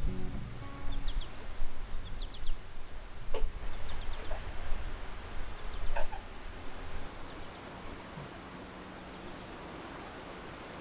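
Small birds chirping in short, high calls every second or so over a steady hiss, with an uneven low rumble beneath; after about seven seconds the chirps and rumble fade, leaving only the hiss.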